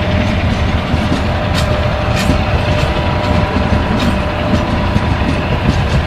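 Passenger train rolling slowly past: a steady low rumble with a few sharp clicks from the wheels over the rail joints.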